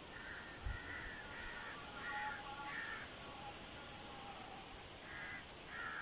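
A crow cawing repeatedly: a run of harsh caws in the first three seconds, then two more near the end. A short low thump comes about a second in.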